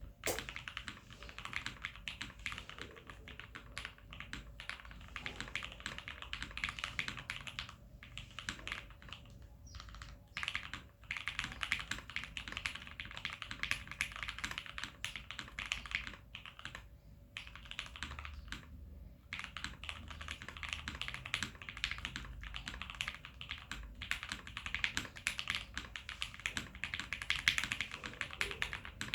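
Continuous typing on a gasket-mount custom mechanical keyboard with lubed Gateron Yellow linear switches, an acrylic plate and PBT keycaps, with brief pauses between bursts.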